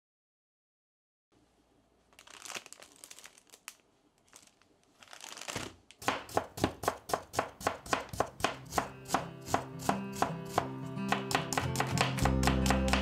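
Kitchen knife chopping ginger on a plastic cutting board. It starts with faint, scattered cuts, then from about halfway becomes fast, even chopping at about three strokes a second that gets quicker. Background music comes in near the end.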